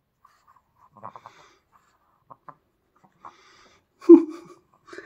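A wet Pomeranian being stroked on a blanket: soft rustles and small clicks of hand, fur and fabric, then about four seconds in a short, loud grunt from the dog that falls in pitch.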